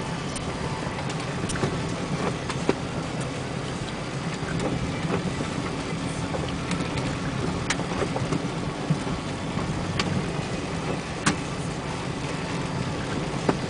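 Motor vehicle driving on a rain-wet dirt road: steady engine drone and tyre noise, with a few sharp clicks scattered through.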